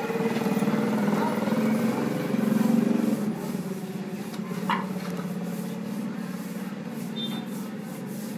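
A low, steady motor hum that swells about two to three seconds in and then eases, with one short tap just before the five-second mark.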